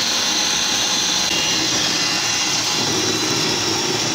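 Electric drill with a paddle mixer running steadily at full speed, churning a bucket of white distemper paint as it is mixed.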